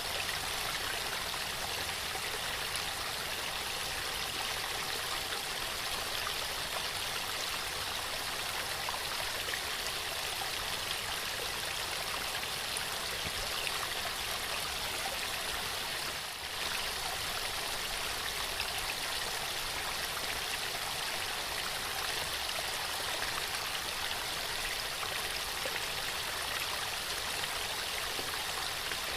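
Waterfall: water falling and rushing steadily, with a brief slight drop in level about halfway through.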